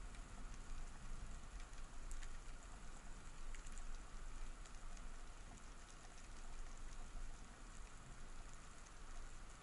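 Underwater sea ambience: a steady crackle of scattered faint clicks over a low rumble of moving water.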